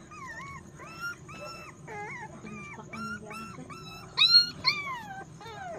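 Puppies whimpering: a string of short, high-pitched whines, about two a second, some sliding up or down in pitch, the loudest a little past four seconds in.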